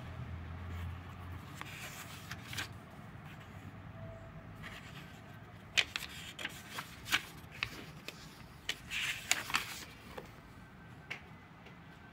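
Pages of a thin-paper notebook turned by hand, the paper giving a series of short, crisp rustles and flaps, most of them bunched together past the middle.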